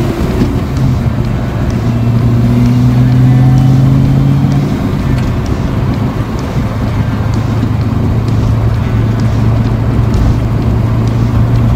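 Small-block Ford V8 with a B303 camshaft driving a Fox-body Mustang, heard from inside the cabin: the engine pulls with its note rising over the first four seconds or so, then eases off and runs steadily.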